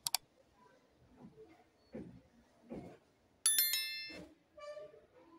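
Sound effects of a subscribe-reminder animation: a quick double mouse click, then a bell ding about three and a half seconds in that rings out and fades within a second. Faint soft taps are heard in between.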